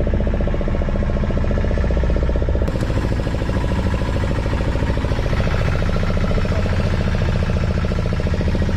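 Small fishing boat's engine running steadily at idle, a fast, even chugging.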